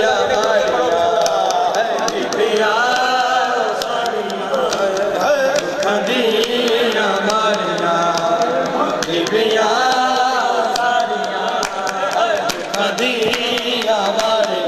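Male voices chanting a noha, a Shia lament, with many hands slapping bare chests in a rhythm (matam) under the singing.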